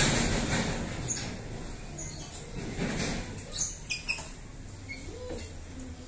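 White-rumped shamas moving about a wire-mesh breeding aviary: rustling and wing flutters, scattered taps on perches and nest boxes, and a few short squeaky calls.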